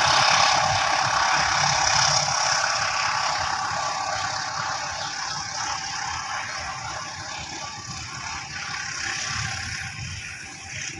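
Tegal Bahari passenger train rolling away on the rails, its steady wheel-on-rail noise and low rumble fading as it recedes.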